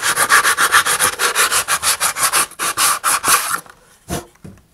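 Sandpaper wrapped on a long wooden dowel rasping back and forth inside a model rocket's body tube in rapid, even strokes, sanding away the old glue fillet. The strokes stop about three and a half seconds in, followed by two short knocks as the dowel is drawn out.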